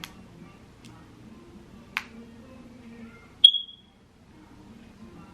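A couple of faint clicks, then a single short, high-pitched ping about three and a half seconds in that dies away quickly.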